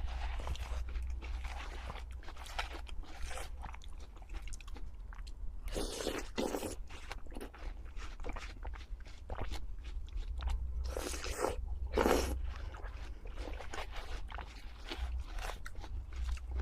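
Close-miked eating of crunchy food: a run of crisp crunches and chewing clicks, with two louder, longer crunching bites about six seconds in and near the twelve-second mark.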